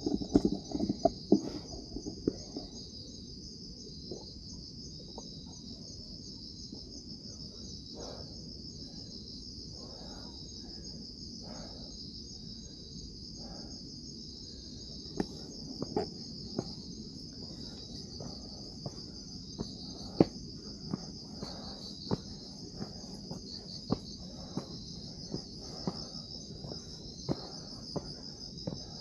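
Steady high-pitched trilling of crickets in a night insect chorus, with scattered taps and knocks, most of them in the first couple of seconds and again in the second half.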